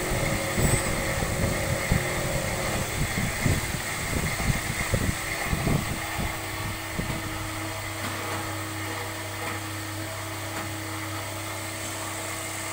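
Okuma & Howa ACT-20 CNC turning lathe running, with a steady whine. Irregular low knocks and thuds are heard over it for the first half, and about seven seconds in it settles to a steady even hum.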